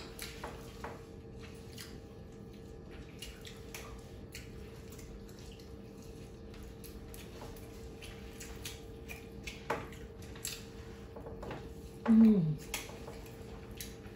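Spoons clicking and scraping faintly on a ceramic plate of rice as two people eat, over a faint steady hum. About twelve seconds in, one eater makes a short, falling hum of enjoyment.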